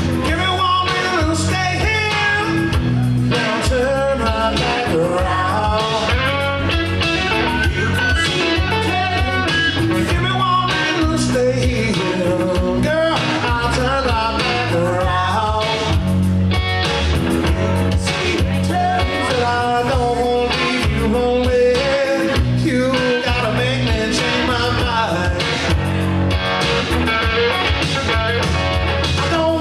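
Live blues-rock song: a man singing over his own electric guitar, played through a small PA.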